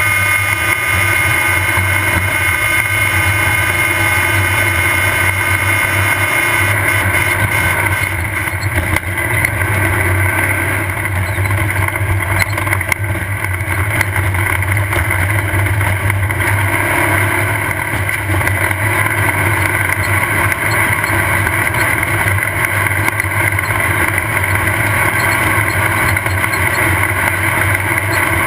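Off-road race buggy engine running hard at a steady pitch, under a constant rush of noise, with brief small dips in level about nine and thirteen seconds in.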